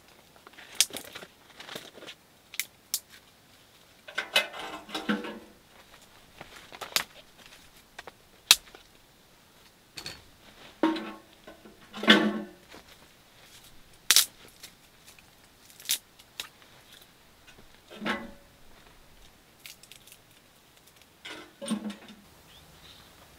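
Dry twigs snapping and rustling as kindling is broken and packed into a small sheet-steel wood stove, with metal clinks from the stove. Sharp snaps come every second or two, with a few longer crackling rustles in between.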